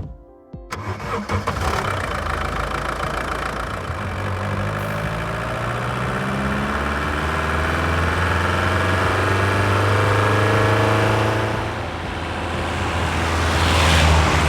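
Volkswagen Golf II diesel engine starting about a second in, then pulling away with its pitch slowly rising. Near twelve seconds it eases off, then climbs again, louder, near the end.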